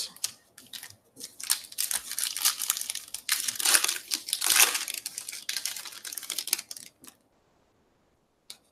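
A baseball card pack's wrapper being torn open and crinkled: a run of crackling and tearing for about six seconds that then stops, with one short click near the end.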